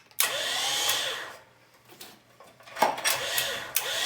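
12 V electric winch motor running briefly as it pays out, switched by its wireless remote, then stopping and starting again near the end. Each run opens with a sharp click.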